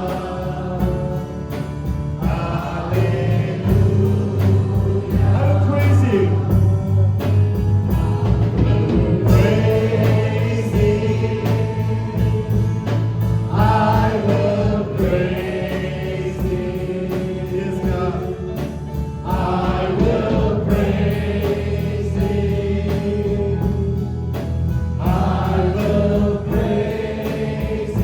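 Worship band and congregation singing a gospel-style praise song together, with voices in chorus over held bass and keyboard notes and a steady drum beat.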